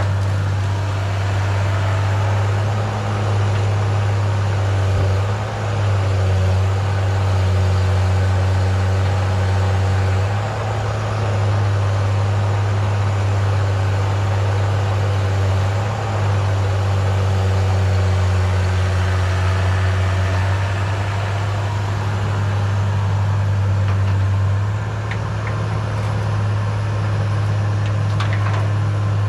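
Cat 318B hydraulic excavator's diesel engine running steadily with a deep hum. Its note shifts briefly a few times, about every five to ten seconds.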